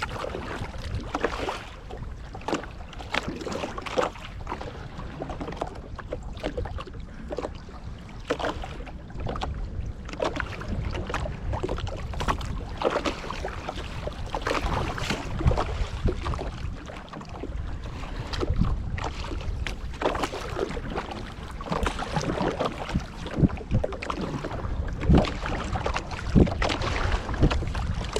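Wind buffeting the microphone, with small waves lapping and knocking irregularly against the hull of a wooden canoe.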